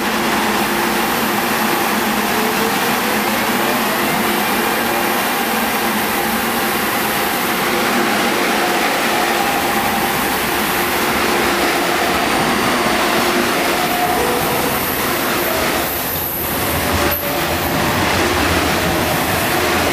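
An MTR electric passenger train runs close past at speed, with a steady rush of steel wheels on rail and a faint hum from the motors. One short sharp click comes near the end.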